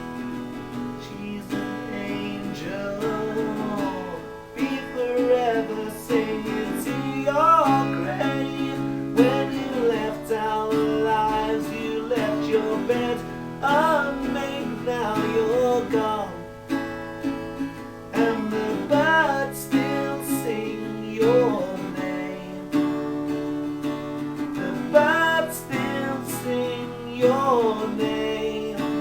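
Music: a slow song with strummed acoustic guitar under a melody line of bending, wavering notes, and no words.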